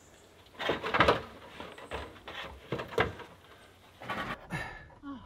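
Several knocks and creaks of a heavy log rafter being shifted into place on a timber post frame, about a second apart, with low grunts of effort.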